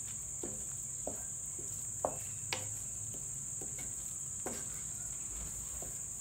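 A spatula scrapes and knocks against a non-stick kadai at irregular moments, about six times, as thick tomato puree is stirred into fried onion masala. Behind it runs a steady high-pitched drone.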